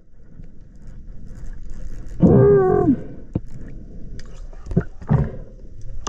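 A diver's muffled voice underwater: a strong, drawn-out cry falling in pitch about two seconds in, then shorter muffled vocal sounds near the end, over a low murky water rumble with a single click in between.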